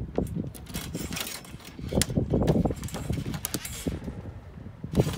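Irregular footsteps and knocks on a sailboat's fiberglass deck while the loose forestay wire is handled, with clicks and light clatters of the rigging. The knocks bunch up loudest about two seconds in, with one sharp knock near the end.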